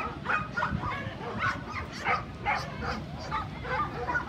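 Dogs barking repeatedly, with crowd chatter behind.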